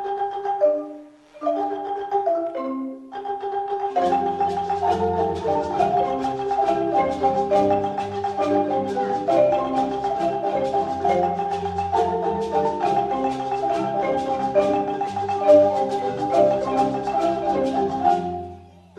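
A marimba ensemble playing. A few marimbas carry the melody alone at first; about four seconds in the full group comes in with the bass marimbas, and near the end the full sound drops away.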